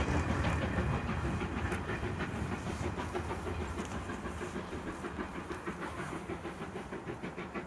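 Japan National Railways Class C12 steam tank locomotive working uphill as it draws away, its steady rhythmic beat fading into the distance.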